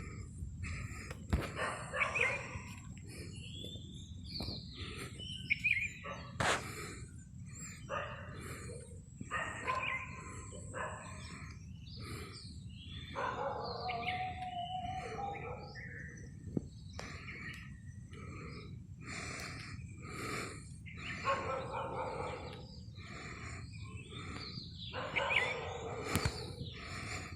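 Dawn chorus of several small birds chirping and calling, with many short overlapping chirps, repeated notes and quick up-and-down whistled glides.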